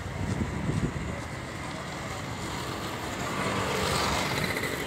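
Roadside traffic noise, with a vehicle passing that grows louder about three to four seconds in.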